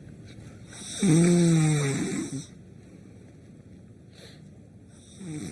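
A man snoring loudly through his open mouth: one long snore about a second in, lasting about a second and a half, with a low droning pitch.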